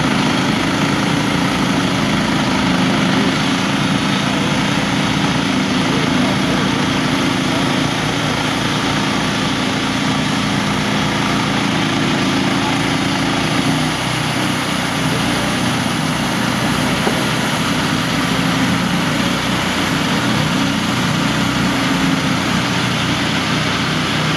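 Small gas engine of a Norwood Frontier OS-27 manual bandsaw mill running under load as its band blade cuts lengthwise through a log: a loud, steady engine drone with saw noise. The engine note drops a little about halfway through.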